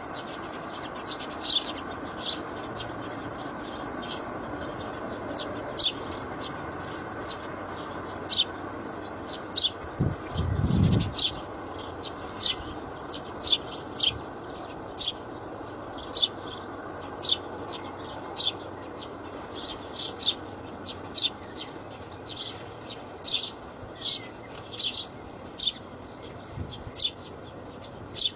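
Small birds chirping: short, sharp high chirps repeated irregularly about once a second over a steady background hiss. A brief low rumble about ten seconds in.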